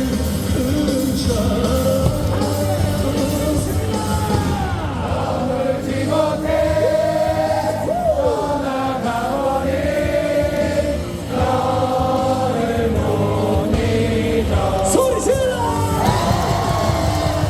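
Cheering-section music over the stadium loudspeakers, with a large baseball crowd singing along.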